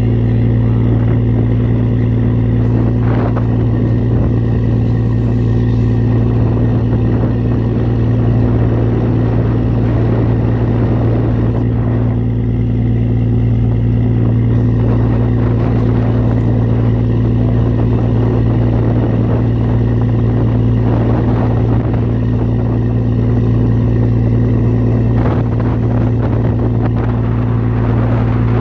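Boat engine running steadily, a constant low drone, with noise of wind and water around it.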